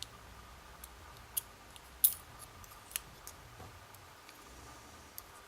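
Small metal lock pins and tools clicking as the pins are taken out of a euro cylinder lock, a few separate sharp ticks, the loudest about two seconds in.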